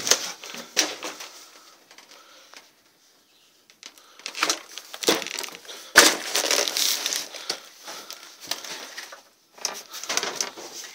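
Irregular crunching and rustling in bursts, with a pause about three seconds in and a single sharp knock about six seconds in.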